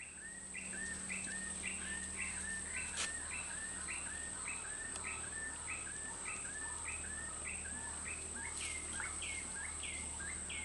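A bird calling in a fast, even series of short falling chirps, about two a second, over a steady high-pitched whine.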